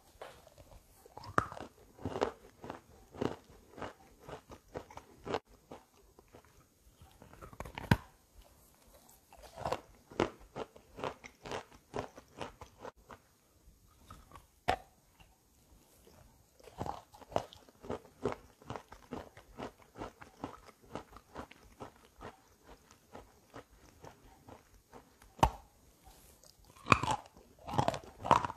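Biting and chewing wet chalk coated in gray clay paste: repeated crunches and crackles in clusters, with short pauses between bites.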